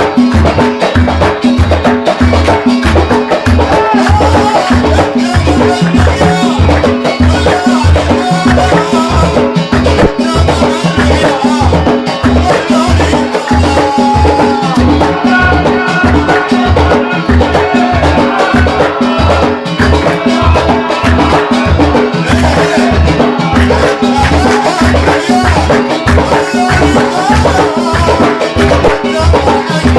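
Gulf folk band music in khabiti style: a steady, driving drum beat with other percussion under a melodic line.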